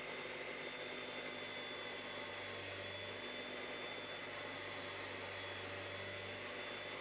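Abrasive chop saw running steadily as its cut-off wheel grinds through 1018 steel bar stock: an even, unchanging whine over a low hum.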